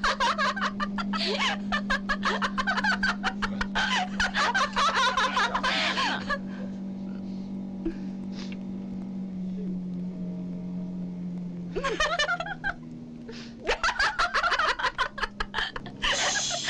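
Two women laughing hard together, rapid giggling bursts for several seconds, then a quieter stretch with only a steady low hum. The laughter and giggling return near the end.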